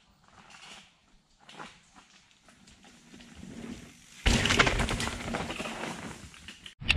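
Mountain bike coming down a dirt trail covered in dry leaves and taking a small wooden drop: faint crunching that grows as it approaches, then a sudden loud landing about four seconds in, followed by tyres crunching over dirt and leaves as it passes close. The sound cuts off abruptly shortly before the end.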